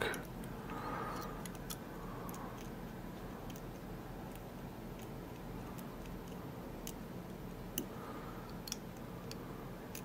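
Faint, irregular metallic ticks and clicks of a deep hook pick working the pin stack inside an EVVA FPS Euro cylinder under tension, one a little louder near the end.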